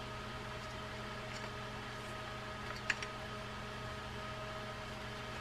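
Steady background hum of a quiet workroom, with a single light click about three seconds in as the small metal reel parts are handled.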